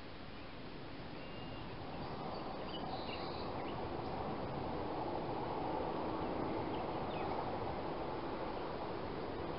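Steady outdoor rushing noise that swells about two seconds in and then holds, with a few faint, short high chirps over it.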